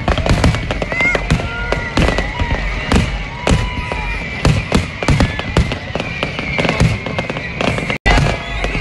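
Fireworks display with aerial shells bursting in quick succession: a dense run of bangs and crackles, with short whistling tones among them.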